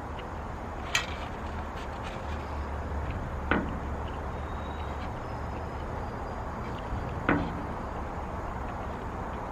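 Three sharp knocks a few seconds apart over a steady low rumble.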